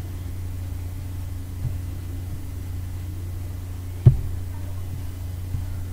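Steady low electrical hum picked up by the recording microphone, with one sharp click about four seconds in.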